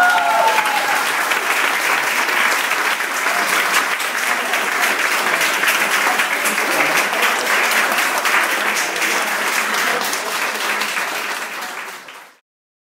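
Crowd applauding with dense clapping, with a short falling whoop of a cheer at the start; the applause fades out and stops near the end.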